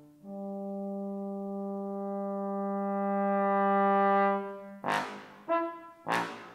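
Unaccompanied bass trombone holding one long low note that swells louder, then breaking off into a series of short, hard-tongued accented notes, about one every half second.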